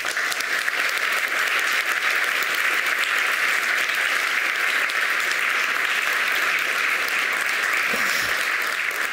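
Audience applauding: a dense, even clapping that breaks out all at once and holds steady.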